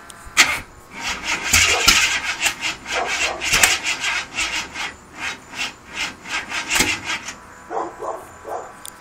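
A Ford 351 Windsor V8, built .060 over with a solid cam and Dart heads, turned over on its starter. It cranks in a quick, even rhythm from about a second in without catching, then slows and stops near the end. This is a no-start that the owner puts down to the carburettor or the distributor.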